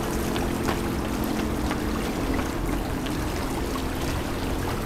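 Sumida River water lapping and splashing at the bank, a steady wash with many small splashes. Under it runs a steady low hum that fades about halfway through.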